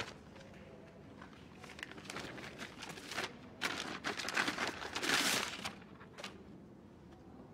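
Kraft-paper envelope crinkling and rustling as it is handled and opened and an object is drawn out of it, loudest about five seconds in.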